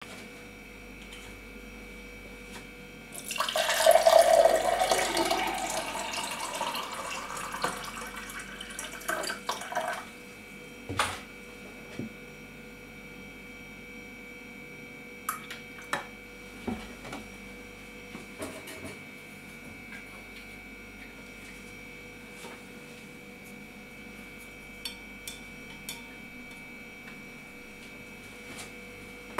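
Water poured into a tall drinking glass, splashing loudly at first and then easing off over about seven seconds. Scattered light taps and clinks follow.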